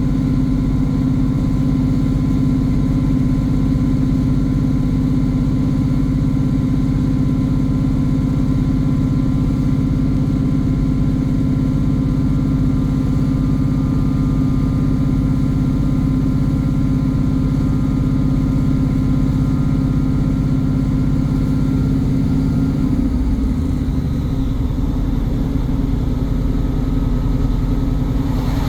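Class 150 Sprinter diesel multiple unit's underfloor diesel engine running steadily, with a thin, steady turbocharger whistle over it. About 23 seconds in, the engine note drops and changes and the whistle fades.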